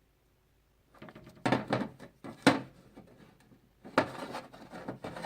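Vintage Walsco tape measure being handled and its steel tape pulled out, starting about a second in: scraping and rattling with several sharp metal clicks.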